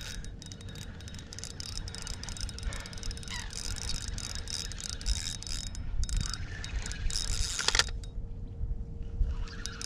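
Spinning fishing reel being wound in, its gears giving a fast run of rattling clicks, with a short louder burst of noise about eight seconds in.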